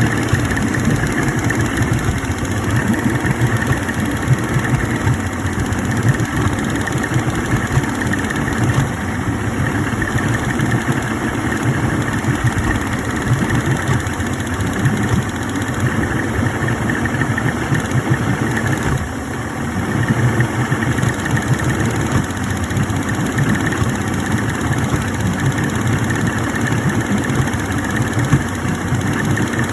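A 2000 Yamaha 250 OX66 V6 two-stroke outboard idling steadily. Scattered sharp jumps in loudness break the steady running: the engine's 'sneeze'.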